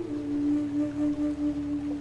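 Background music: one long held note whose loudness wavers about three times a second.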